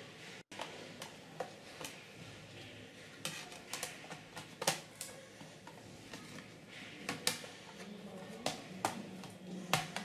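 Irregular light plastic clicks and taps: the plastic bottom access cover of an HP Pavilion G6 laptop is being pressed and snapped back onto the chassis. About a dozen short clicks, the loudest about halfway through.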